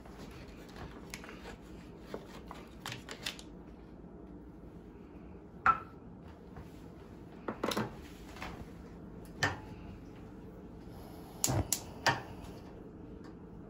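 Scattered clicks and knocks of a knife cutting a slice off a stick of butter on its wrapper and laying it in a nonstick frying pan. Near the end a gas stove's burner knob is turned, with a quick run of clicks.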